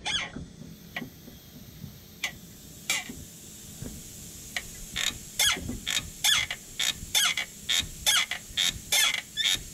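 External clutch slave cylinder and its push rod squeaking as the clutch is worked: a few separate squeaks at first, then an even run of about three sharp squeaks a second from about halfway. The push rod is working at a steep angle to the fork.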